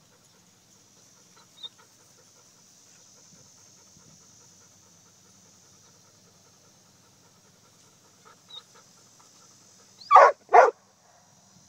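A dog barks twice in quick succession near the end, two short loud barks about half a second apart, over a faint steady high-pitched hiss.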